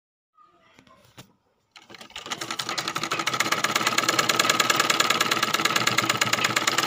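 Black Usha sewing machine stitching a seam through pink fabric. After a few faint handling clicks, it starts up about two seconds in, speeds up over about a second, and then runs in a fast, even ticking of stitches.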